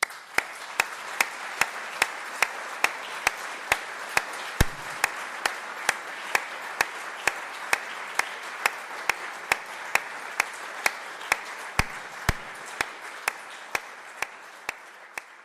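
Audience applauding. Sharp claps close to the microphone, at a steady pace of about two a second, stand out above the crowd's clapping. The applause fades near the end.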